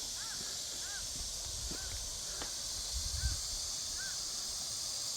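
Outdoor ambience: a bird giving short, arching calls about five times, over a steady high hiss, with a brief low rumble about three seconds in.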